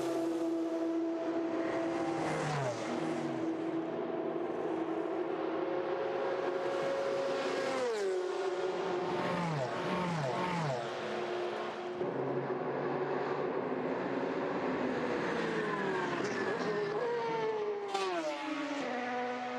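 Peugeot 908 prototypes' V12 diesel engines running at racing speed. The engine note drops in pitch several times: a couple of seconds in, about eight seconds in, three quick drops around ten seconds in, and a long fall near the end.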